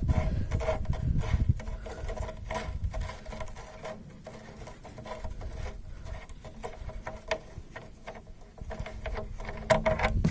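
Engine oil draining out of a KamAZ truck engine's sump, a low uneven rushing and pattering with scattered clicks and knocks.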